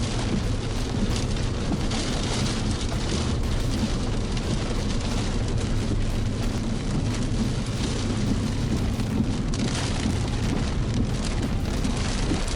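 Strong wind buffeting the microphone near a tornado: a steady low rumble with a rushing hiss that swells and eases.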